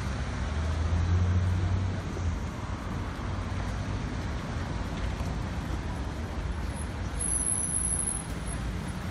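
Road traffic on a busy city street: a steady din of passing engines and tyres, with a low engine drone loudest about one to two seconds in. A thin high whine sounds briefly near the end.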